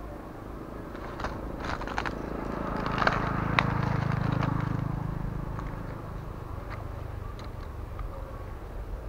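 Scattered sharp clicks and scraping as a spinning rod and reel are handled, with a low hum that swells in the middle and fades away.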